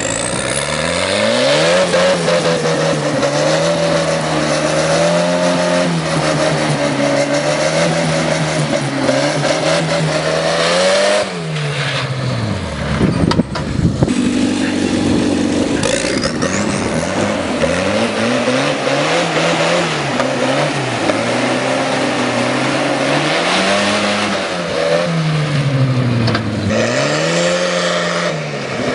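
Turbocharged tractor's diesel engine running hard at road speed. Its pitch climbs, holds steady, and drops about halfway, with a few knocks in the lull. It then rises and falls several times, with a brief high rising whistle twice.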